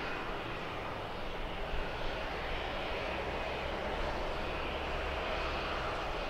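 Steady, even noise of distant aircraft engines running at an airport, with a low rumble underneath and no distinct events.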